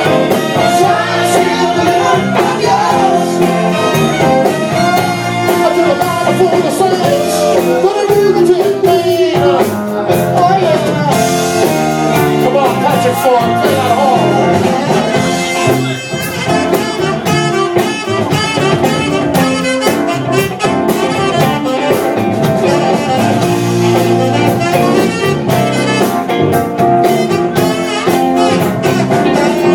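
Live Motown band playing, with a lead singer and horns over a steady drum beat.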